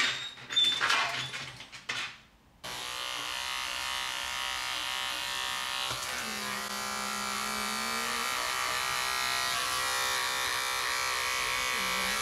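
A few sharp clicks, then a small handheld electric pet-grooming tool switches on abruptly about two and a half seconds in and runs steadily, with a lower tone coming and going over it.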